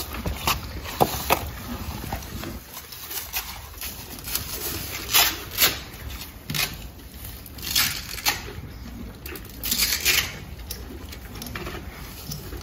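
Short crackling rips and rustles as Velcro straps on horse leg boots are pulled open and fastened, mixed with straw rustling underfoot. The loudest rips come in clusters about five, eight and ten seconds in.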